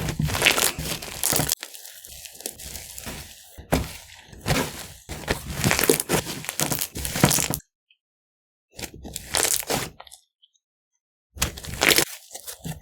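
Snow fizz slime being squished and pressed by hand, giving dense crackling, crunchy pops in a series of bursts, with two sudden drops to silence in the second half.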